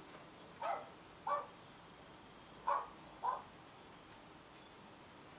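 Dogs barking faintly: four short barks, in two pairs about two seconds apart.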